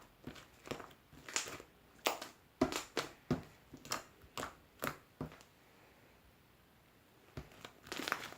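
Slime being squeezed and pressed by hand, giving sharp crackling pops, about three or four a second, which stop for a couple of seconds and return in a short cluster near the end.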